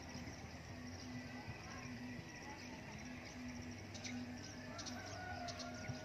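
Faint rural ambience: insects chirping, with a low hum that pulses on and off about twice a second.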